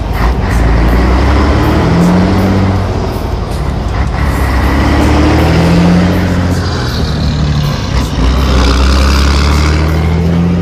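Scania 113 truck's straight-piped inline-six diesel pulling away under load. The engine note climbs in pitch and drops back at each gear change, about three times.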